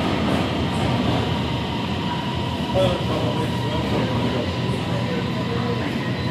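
Metro train standing at an underground station platform behind closed platform screen doors, running with a steady hum and a thin, constant high tone.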